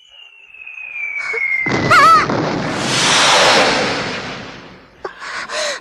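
Anime sound effect: a whistle sliding steadily downward for about two seconds, then a long explosion-like rushing roar that swells and fades away over about three seconds.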